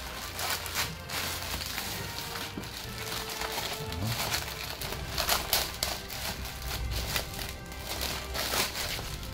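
Thin clear plastic bag crinkling and rustling in irregular crackles as it is handled, over background music.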